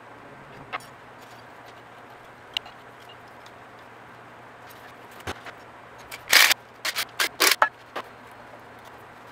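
Workshop handling noises over a faint steady hum: a few light clicks, then a quick run of sharp clatters and knocks about six to eight seconds in, the first of them the loudest.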